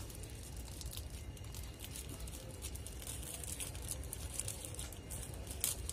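Plastic wrapping crinkling and rustling as it is peeled off and crumpled by hand: a scatter of short, light crackles.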